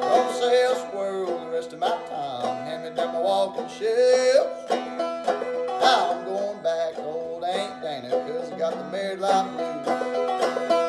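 Banjo played clawhammer style: a blues tune of plucked notes, several sliding in pitch, over a steady drone note.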